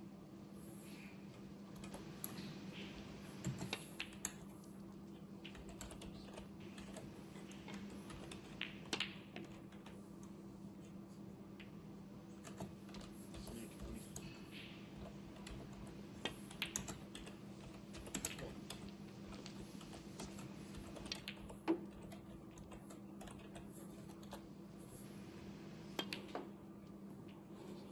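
Scattered sharp clicks and taps, a few in quick clusters, over a steady low hum. The loudest click comes about three-quarters of the way through.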